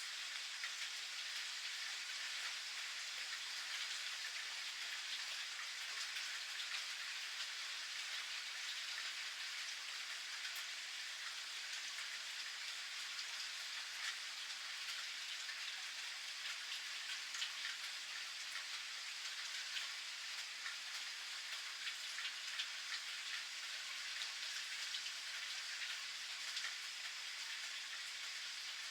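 Steady rain falling: an even hiss of rain with many small, sharp drop ticks scattered through it.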